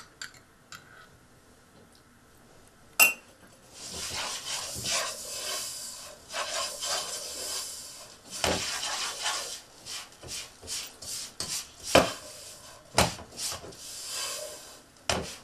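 Wooden spatula stirring and scraping a dry, crumbly gram-flour mixture around a nonstick pot. The loudest sound is a single sharp knock about three seconds in. Steady scraping follows, broken by several more knocks against the pot.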